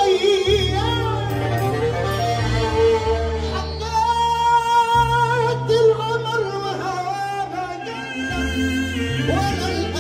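Male singer singing an Egyptian sha'bi wedding song live through a microphone and PA, with a wavering, ornamented vocal line over an electronic keyboard accompaniment with sustained bass notes.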